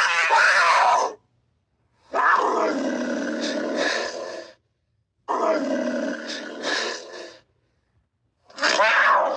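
Florida panther calling: four calls with short silences between them, the middle two longer, about two seconds each.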